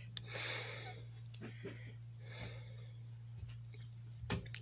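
Soft breathy huffs, twice, over a steady low hum in the room, with a light knock near the end.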